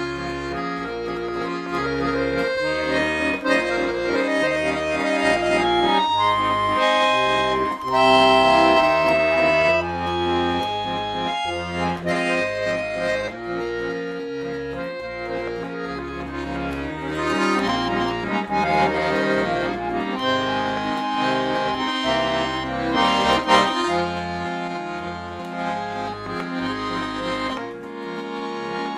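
Bayan (Russian chromatic button accordion) playing a tune: a melody of held notes over rhythmic bass notes that change about every half second, without a break.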